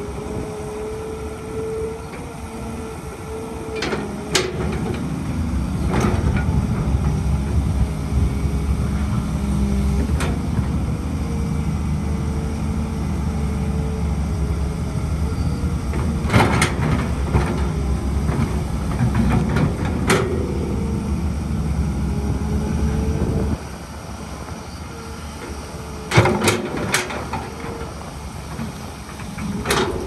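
Heavy construction machinery at work: a diesel engine runs under varying load with a steady whine over it, its low rumble swelling about five seconds in and dropping off abruptly near the end. Sharp clanks break in several times.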